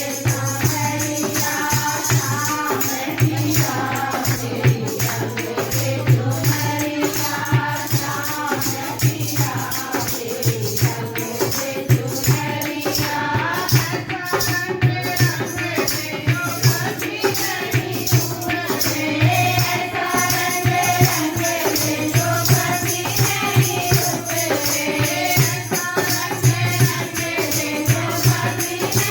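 Hindi devotional bhajan: singing over a steady beat with jingling hand percussion.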